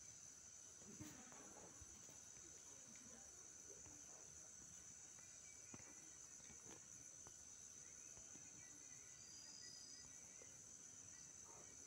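Near silence: a faint steady high-pitched hum, with a few faint clicks.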